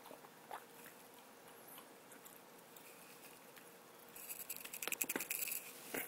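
Cocker spaniel licking herself while grooming: a few faint wet licks, then a quick run of wet licking and mouth clicks from about four seconds in until near the end, the loudest part.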